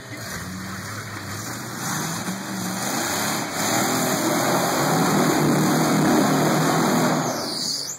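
Engine of a modified Jeep CJ-style rock crawler revving as it climbs a rock ledge, growing louder as it pulls up close, then stopping abruptly near the end.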